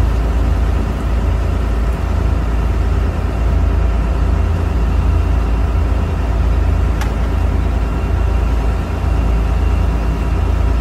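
Boat engine running steadily under way, a deep constant rumble with a steady hum of engine tones above it. A single sharp click about seven seconds in.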